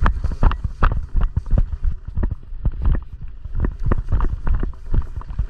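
Footsteps of a person moving quickly on foot: irregular low thuds, about three a second.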